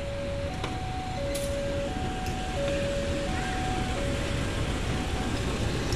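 Railway level-crossing warning signal sounding two alternating electronic tones, low then high, each held under a second. Under it, a KAI CC203 diesel-electric locomotive running light rumbles past, its engine growing louder as it comes alongside.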